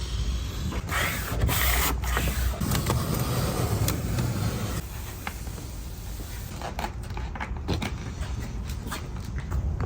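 Vinyl car-wrap film being handled and worked, giving rubbing and crinkling noises with scattered clicks. A low rumble runs through the first half and drops away about five seconds in.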